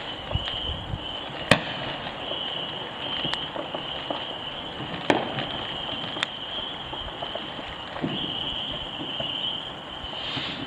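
Fireworks going off in the distance: a handful of sharp, separate bangs a second or two apart over a steady background hiss.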